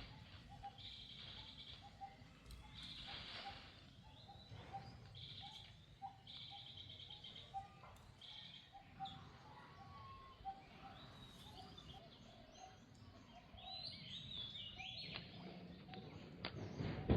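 Outdoor ambience of birds chirping and trilling, with a short note repeated about three times a second over a low, steady rumble. The chirps grow busier past the middle, and a louder burst of noise comes near the end.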